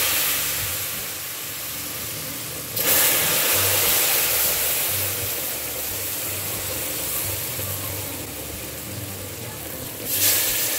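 Sugar syrup hitting semolina roasted in hot ghee: a loud, steady sizzling hiss as the pot froths up. The hiss swells sharply about three seconds in and again near the end.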